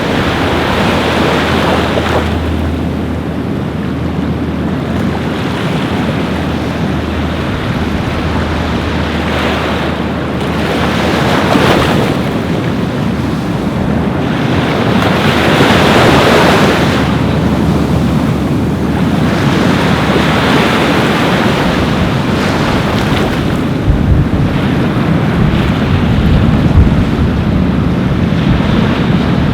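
Ocean waves washing onto a beach, the surf swelling and fading every few seconds, with wind rumbling on the microphone.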